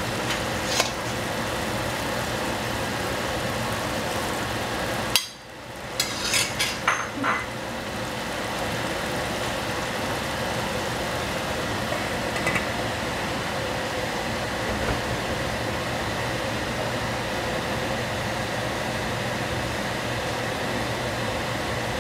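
Cabbage and shiitake mushrooms cooking in a stainless steel saucepan on a gas burner give a steady hiss over a low hum. A few sharp metal clinks come about six to seven seconds in, and a light clink comes around twelve seconds as the stainless lid is set on the pan.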